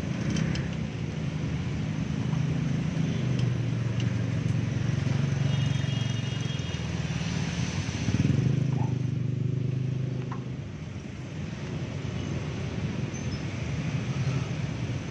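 Low engine rumble of motor traffic that swells and fades, loudest about eight seconds in, with a few faint clicks.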